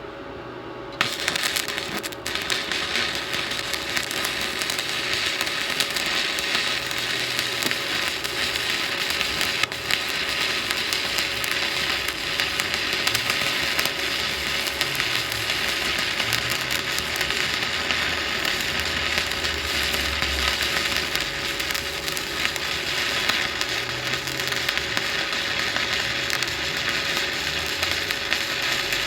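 Shielded metal arc (stick) welding on thin sheet: the arc strikes about a second in and then crackles steadily as the bead is run along a square butt joint, with a steady hum underneath.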